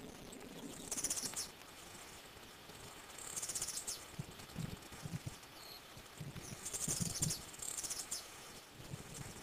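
Outdoor natural ambience: several short bursts of high, fast-pulsing chirps, about a second in, near the middle and twice more later, with soft low thumps in between.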